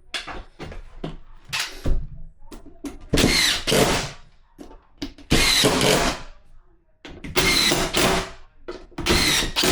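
Electric drill-driver driving four screws into the back of a flat-pack drawer, in four runs of about a second each, after a few knocks of the parts being handled.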